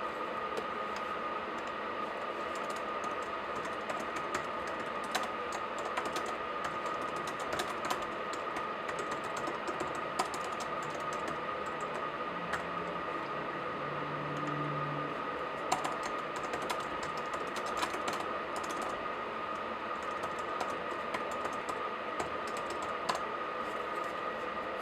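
Typing on a laptop keyboard: a steady run of irregular key clicks over a constant background hiss and faint high hum.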